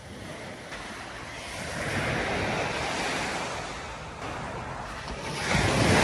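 Small waves breaking and washing up a sandy shore, the surf swelling about two seconds in and again near the end, with wind rumbling on the microphone.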